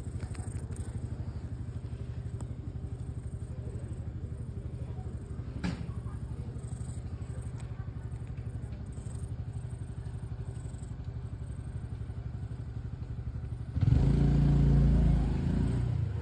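Domestic cat purring close to the microphone while being stroked: a steady, low, pulsing rumble. About three-quarters of the way through, a much louder low rumble comes in for a couple of seconds.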